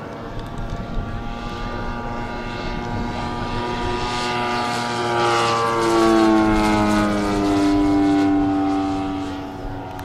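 Propeller-driven radio-controlled scale model of a Morane-Saulnier D-3801 flying past. Its steady propeller hum swells to its loudest about six seconds in and drops in pitch as it passes.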